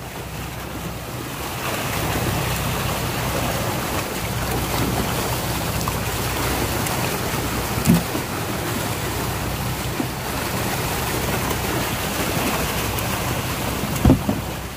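Water churning and splashing as a mass of fish thrashes at the surface of a sea-cage pen, over a steady low rumble with wind on the microphone. Two heavy thumps stand out, about 8 s and 14 s in, as plastic fish crates are knocked and tipped out.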